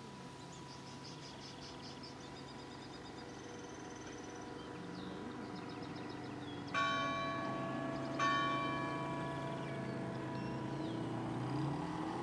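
A bell struck twice, about a second and a half apart, each stroke ringing on for a second or more. Birds chirp before it, and a low steady hum runs underneath, slowly growing louder.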